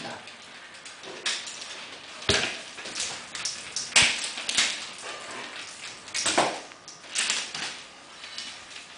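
Nunchaku swung and caught: swishes through the air and knocks as the sticks strike the hands or body, irregularly spaced, with the strongest knocks about two and four seconds in.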